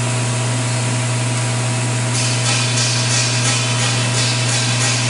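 A machine running with a steady hum and hiss. About two seconds in, a rhythmic swishing joins it, about three pulses a second.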